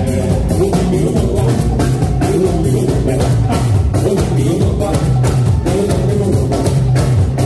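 Live band playing upbeat dance music through a PA: a drum kit keeps a steady beat under a bass line, with a man singing into a microphone.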